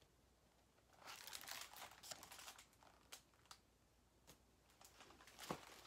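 Faint rustling of a hardcover picture book's pages being turned and handled, with a few soft clicks and taps.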